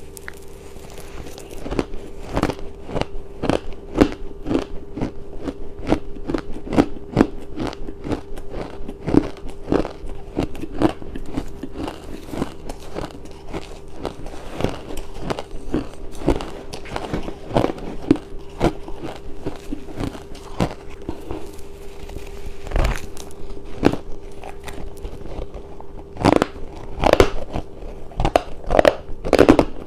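Ice being bitten and chewed close to the microphone: sharp, irregular crunches several times a second, louder and denser near the end. A steady low hum runs underneath.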